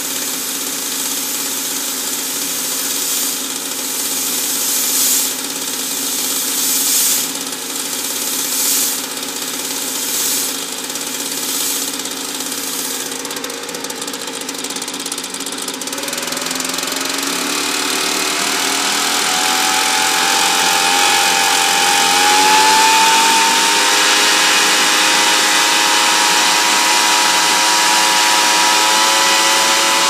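Small gas turbine engine running, with several short hissing bursts in the first half. About halfway through it speeds up, its whine rising in pitch for several seconds, then running steady and louder at the higher speed.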